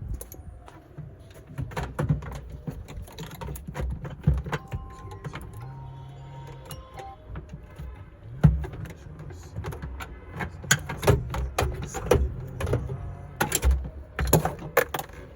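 Hand work on the plastic HVAC housing of a Hyundai Santa Fe while the A/C evaporator core is worked loose: irregular clicks, knocks and scrapes over a low steady hum, with the loudest knocks about eight seconds in and in a cluster near the end.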